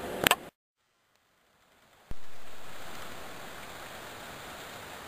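A sudden rain shower falling steadily on a grassy field, an even hiss of rain that comes in abruptly about two seconds in. Before it, a couple of sharp clicks and a short stretch of near silence.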